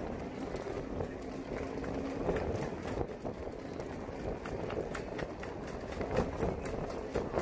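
Wind buffeting the microphone outdoors: an uneven rush with scattered small ticks.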